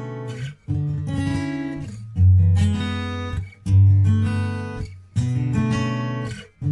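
Background music: acoustic guitar strumming chords, a new chord about every second and a half.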